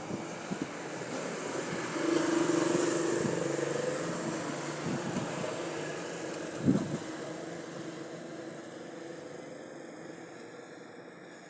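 A motor vehicle's engine passing by, loudest about two seconds in and then slowly fading away, with a short sharp thump a little past halfway.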